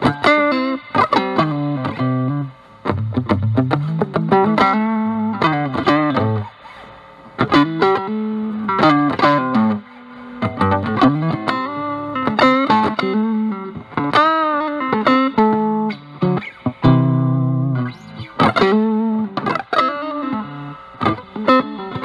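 Electric guitar lead played through a Dunlop JDF2 Fuzz Face with NTE158 germanium transistors into a Vox Pathfinder 15R amp, the fuzz cleaned up by the guitar's volume control. It plays improvised single-note blues phrases with string bends and vibrato, broken by short pauses.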